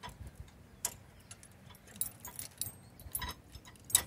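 Tow bar safety cable and its metal hook clinking and jingling as they are handled and hooked onto the car's towing bracket: a few irregular sharp clinks, the loudest near the end.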